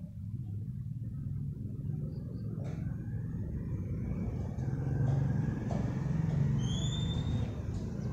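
A steady low rumble that grows louder over the first five seconds or so and eases slightly near the end. A faint high whistle-like tone comes about seven seconds in.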